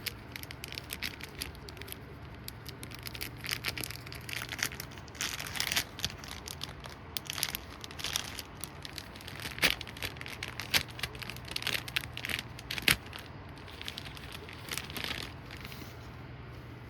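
Resealable plastic packaging crinkling and crackling as it is opened and handled, with a few sharper snaps about ten to thirteen seconds in, over a steady low hum.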